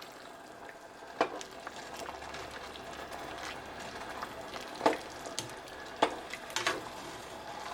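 Pot of potato soup bubbling as it is stirred with a spoon, with a few sharp knocks of the spoon against the pot.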